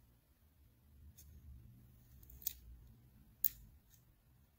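Short, sharp plastic clicks from a disassembled Canon camera body being handled, four in the span of a few seconds, the middle two loudest.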